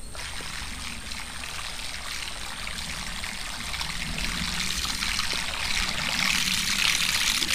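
Water rushing and splashing along the hull of a wooden canoe moving through the water, a steady hiss that grows louder in the last few seconds and stops abruptly.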